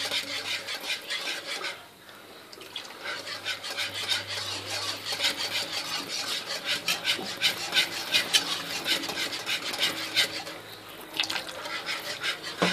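Wire whisk scraping round a nonstick frying pan of thin white sauce, in quick rhythmic strokes with two short pauses, about two seconds in and near the end. The sauce is being stirred without stopping to keep it smooth as it cooks.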